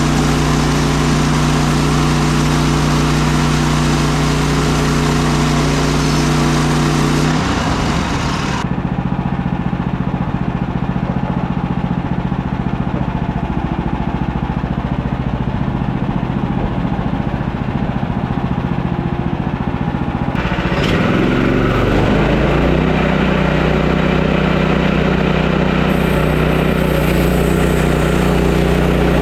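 Woodland Mills HM130 Max sawmill's gas engine running steadily. About seven seconds in, its note drops lower and rougher for roughly thirteen seconds, then picks back up near the twenty-second mark, typical of the engine labouring as the band blade works through hard maple.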